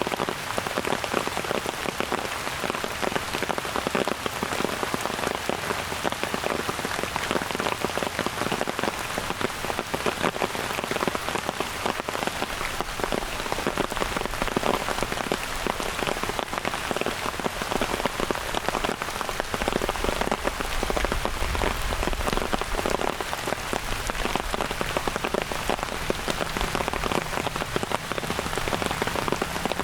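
Steady rain falling, a dense, even patter of raindrops. A faint low rumble swells briefly about two-thirds of the way through.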